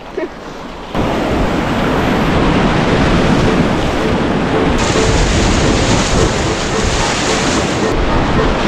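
Loud, steady rush of whitewater river rapids, with wind buffeting the microphone; it starts suddenly about a second in. A brighter hiss joins about halfway and drops out near the end.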